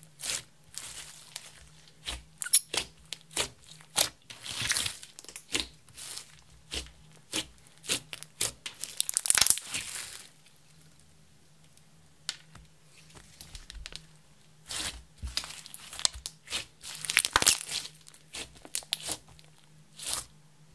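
Clear slime mixed with crushed makeup and glitter being kneaded, pressed and stretched by hand, giving sticky crackles and small pops in clusters, with a quieter pause about halfway through.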